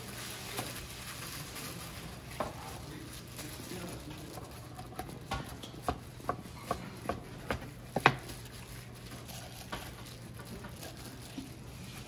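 Kitchen knife slicing a gimbap roll on a plastic cutting board: a run of sharp knocks, about two a second, starting about halfway in, the last one the loudest. Around it, soft rustling of plastic-gloved hands handling the roll, over a steady low hum.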